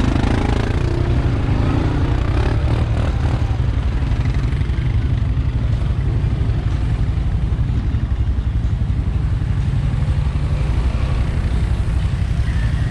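Honda ATV engine running under way on a dirt trail. Its revs rise and fall in the first couple of seconds, then it runs on steadily with a heavy low rumble.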